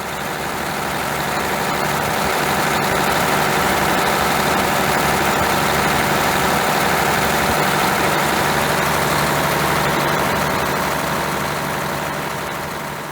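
Mercedes-Benz OM501LA V6 turbo-diesel idling steadily with a knock, fading in at the start and out near the end. The knock and blow-by come from broken piston rings on No. 2 cylinder.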